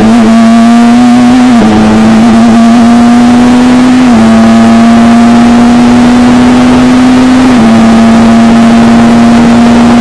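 British Formula 3 racing car's engine at full throttle, heard from the cockpit, its note climbing steadily and stepping down in pitch three times as the driver shifts up through the gears.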